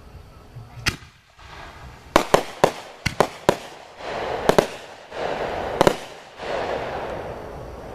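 Fireworks going off: a single sharp bang about a second in, then a rapid string of bangs, with a crackling hiss filling the gaps between the later reports.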